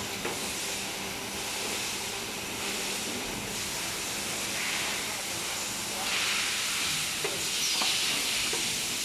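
Jwell extrusion blow molding machine running, with a continuous air hiss over a faint hum and a few light mechanical clicks; the hiss grows louder about six seconds in.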